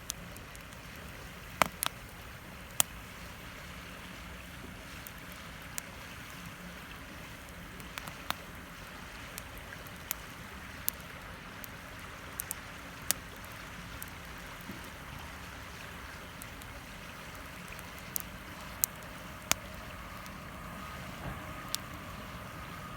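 Wood fire crackling, with sharp, irregular pops every second or two, over the steady rush of a flowing river.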